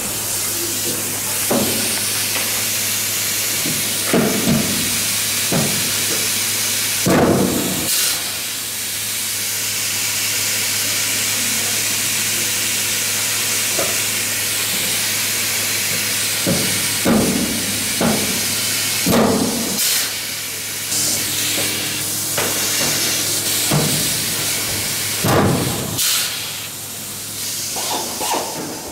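Pneumatic tool on an air hose working the aluminium skin of an aircraft fuselage floor: a steady hiss with about a dozen short bursts a second or more apart, and a lull in the middle.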